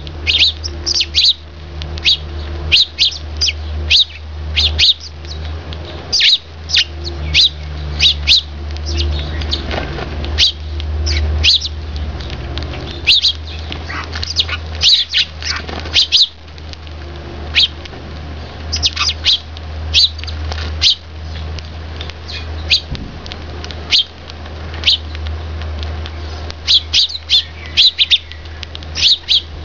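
Eurasian tree sparrows chirping: many short, sharp calls that fall in pitch, coming in quick clusters of two or three with brief gaps between. A steady low hum runs underneath.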